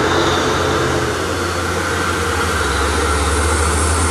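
Mitsubishi Fuso box truck's diesel engine running steadily as the truck drives past close by. Its low engine note deepens about two and a half seconds in.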